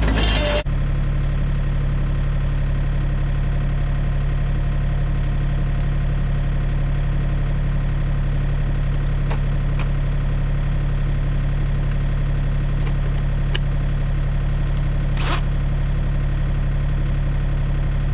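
Mini excavator's diesel engine idling steadily, a low even hum; the sound changes suddenly about half a second in.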